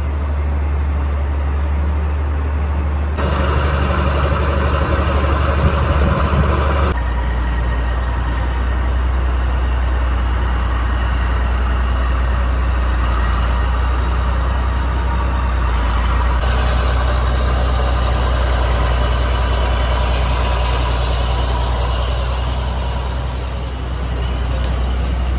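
Farm tractor engine running steady while it pulls a feed mixer wagon that is unloading feed into a cow bunk. The engine note shifts about three seconds in and again about seven seconds in.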